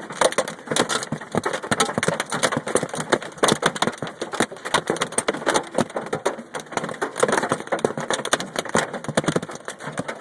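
Hailstones pelting a Mazda Miata in a dense, rapid, irregular clatter of hard hits.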